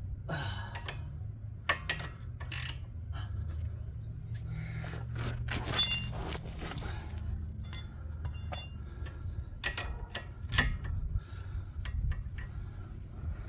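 Steel hand tools clinking and knocking against a sway bar end link while an 18mm ratcheting wrench and T40 Torx bit are fitted to its nut, with one loud ringing metal clink about six seconds in and another sharp knock near ten seconds. A low steady hum runs underneath.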